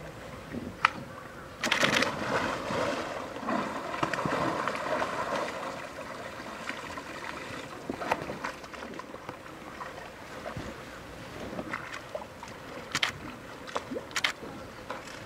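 Pool water splashing and sloshing as an adult polar bear swims, louder for a few seconds about two seconds in, with a few sharp knocks scattered through.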